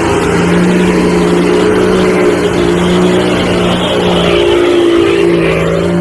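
Off-road SUV on oversized mud tyres driving through deep mud, its engine running steadily under load, with a slight change in pitch about two-thirds of the way through.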